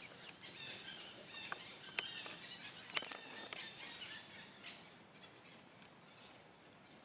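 Young macaques giving short, high-pitched squeals and squeaks, thickest in the first few seconds and thinning out, with a few sharp clicks among them.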